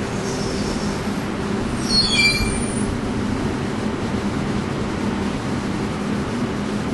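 Steady drone and low hum of the motor ferry Prins Johan Friso's machinery. About two seconds in, a brief high squeal rises above it.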